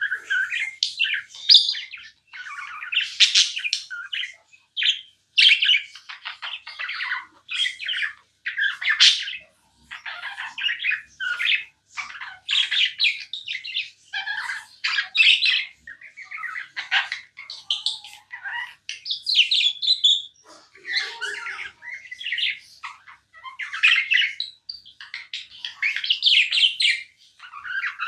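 Budgerigars chirping and chattering non-stop, a dense run of short warbling chirps and harsher squawks coming in clusters with brief pauses between them.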